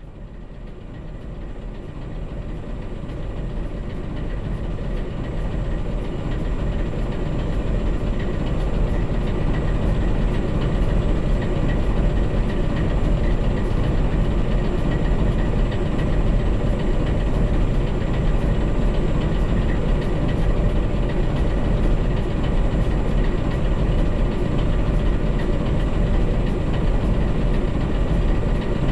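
Diesel-electric locomotive engines running steadily, heard from a camera mounted on the locomotive, fading in over the first several seconds.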